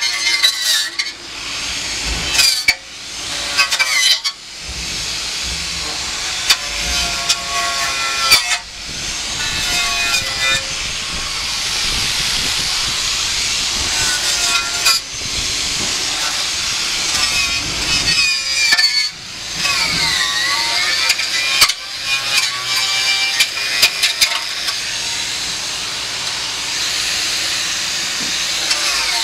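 A cutting tool at work in long runs: a steady rasping hiss with a shrill, wavering squeal, broken by several short pauses.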